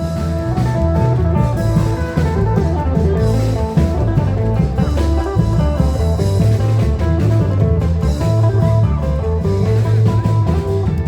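Isan klong yao long-drum band playing procession music: heavy long-drum beats under a busy plucked-string melody.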